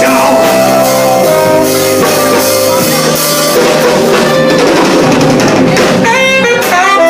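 Live band playing an instrumental passage, with drum kit and guitar, and a quick run of rising notes about six seconds in.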